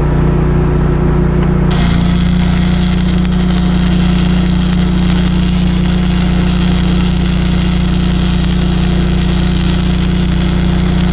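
Self-shielded flux-core wire-feed welding (FabShield 21B wire) on the thick steel plate of an excavator boom: the arc strikes about two seconds in and runs with a steady crackling sizzle as the first fill passes go into a wide, backed gap. A steady engine hum runs underneath throughout.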